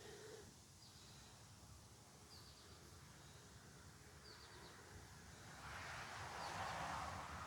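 Faint outdoor ambience: a small bird gives four short chirping trills a second or two apart, and near the end the noise of a passing vehicle swells up.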